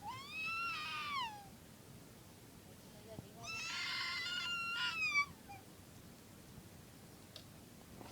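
Cat meowing twice: a short call that rises and falls, then a few seconds later a longer, louder meow.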